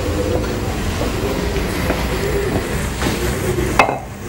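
Lentil fritters (dahi bhalle) deep-frying in a pan of hot oil, sizzling steadily.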